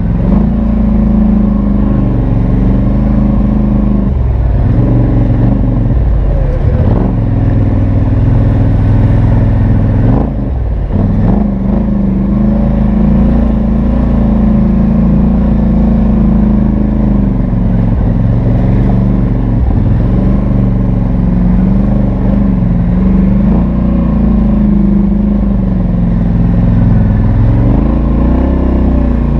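Polaris Sportsman XP 1000 ATV's twin-cylinder engine running through its stock exhaust while riding a trail, the pitch rising and falling as the throttle is worked, with brief let-offs every few seconds.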